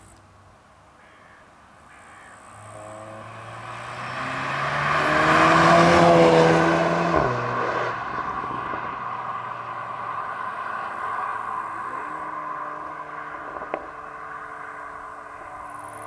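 2020 VW T-Roc R's turbocharged 2.0-litre four-cylinder engine, with tyre noise, as the car drives past under acceleration. The engine note climbs in pitch and loudness to a peak about six seconds in, then drops sharply in pitch just after seven seconds and fades away down the road.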